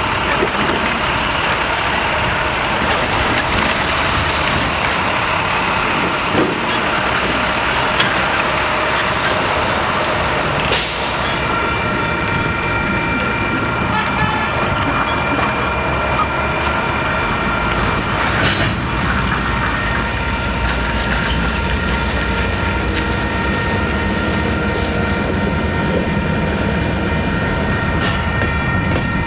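Union Pacific freight train rolling past, a steady loud noise of locomotive and rail cars on the track. About twelve seconds in, a few faint steady high tones join the noise and hold.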